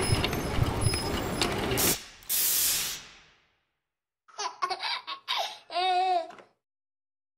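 A dense noisy background with scattered clicks cuts off about two seconds in, followed by a short hiss from a pump spray bottle. After a pause, near the end, come a few short bursts of laughter, the last one wavering in pitch.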